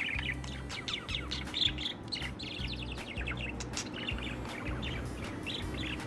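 Budgerigar warbling: a steady run of short, quick chirps and chattering notes.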